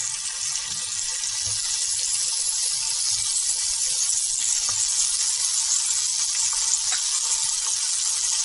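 Tofu slabs sizzling in hot oil in a ridged grill pan: a steady hiss that grows a little louder over the first couple of seconds as more slices go in, with a few light taps as they are laid down.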